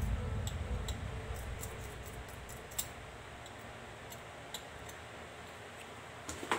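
Sparse, irregular light clicks of small metal watch parts and tweezers being handled during a watch teardown, with the tail of background music fading out over the first couple of seconds.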